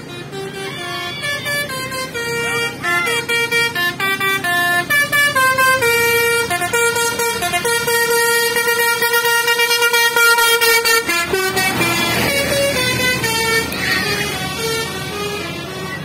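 A tour bus's telolet basuri musical air horn plays a loud, quick tune of stepped notes. About eleven seconds in, a burst of engine and air noise comes as the bus passes, followed by a few more horn notes.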